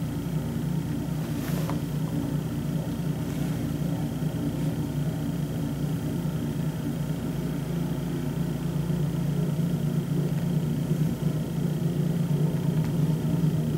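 Ariens Deluxe snow blower's gasoline engine running steadily under remote control, heard from inside the house as a muffled low rumble that grows a little louder in the second half.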